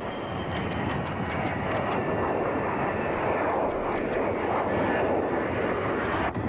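B-2 Spirit stealth bomber's four non-afterburning General Electric F118 turbofans running steadily as it lands and rolls out on the runway: an ordinary-sounding jet engine noise.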